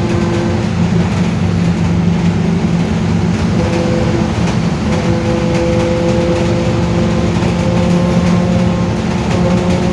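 Mercedes-Benz OF-1721 bus's differential howling very loud while driving: a steady whine over the running noise that drops out briefly and comes back, creeping up in pitch near the end.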